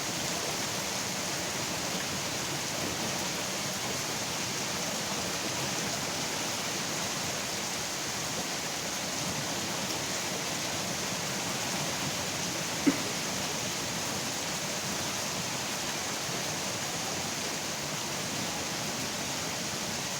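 Steady rain falling, an even hiss with no breaks. There is one short, sharp click about thirteen seconds in.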